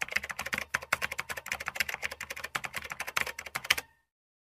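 Typing sound effect: a fast, uneven run of key clicks that keeps time with on-screen text appearing letter by letter. It cuts off about four seconds in.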